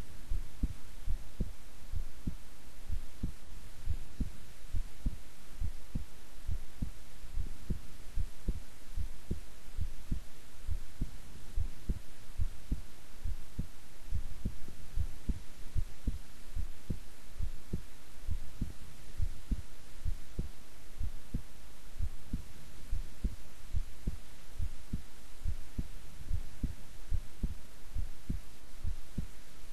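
A woman's heart beating at rest, recorded close up: a steady, even run of low lub-dub thumps.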